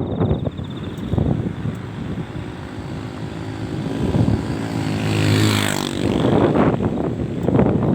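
A motor passing by, swelling to its loudest about five and a half seconds in and then fading, over gusty wind noise.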